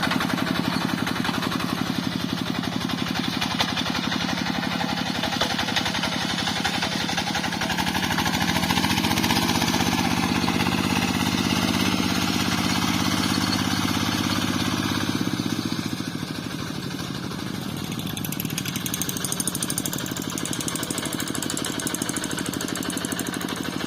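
Rice-field tractor engine running steadily. It speeds up about a third of the way in, holds the higher pitch for several seconds, then drops back to a lower, steadier running speed.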